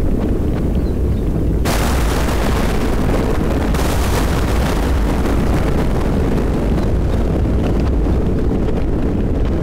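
Thunderstorm: a steady deep rumble throughout, and a thunderclap that breaks sharply nearly two seconds in and fades slowly over the following seconds.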